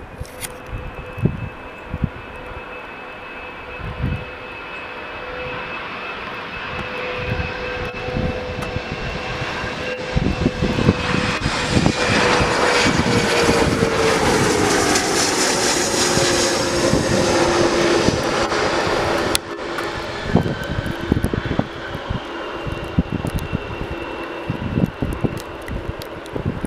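A twin-engine business jet's turbofans whine as it comes in low on approach. The sound grows louder and drops in pitch as the jet passes overhead, with gusts of wind buffeting the microphone. After a sudden drop in level about three-quarters of the way in, the engines whine more faintly as the jet rolls out on the runway.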